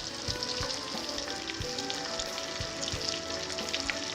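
Small minced-meat balls sizzling and crackling as they fry in hot melted fat in a pot, with a few light knocks.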